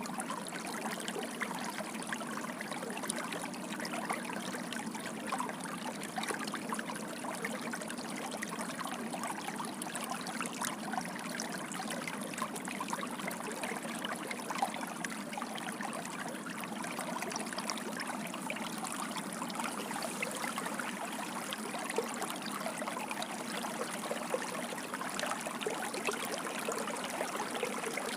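Water gushing and splashing in a steady, unbroken flow, like a stream running over stones.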